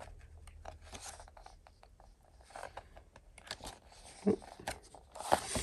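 Pages of a paper album photobook being turned by hand: light paper rustles and crinkles, busier in the second half, ending in a louder swish of a page. A brief low hum comes about four seconds in.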